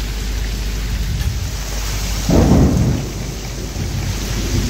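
Squall rain and gusting wind, with a short, loud clap of thunder a little over two seconds in.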